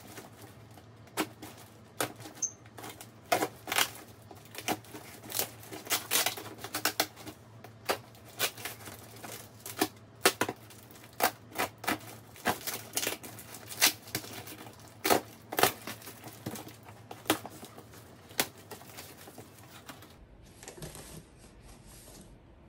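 A cardboard shipping box being opened by hand: an irregular run of sharp rips, clicks and crinkles from packing tape, cardboard and wrapping, which stop near the end.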